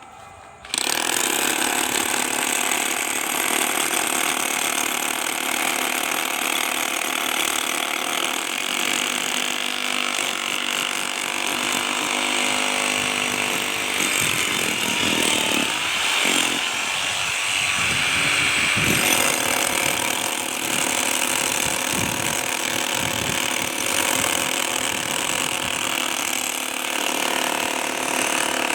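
Engine-driven concrete cutting saw running steadily while cutting a reinforced concrete road; it comes in abruptly about a second in.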